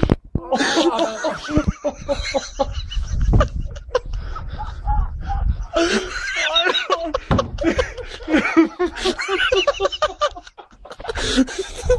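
People laughing hard in long runs of short, pulsing bursts.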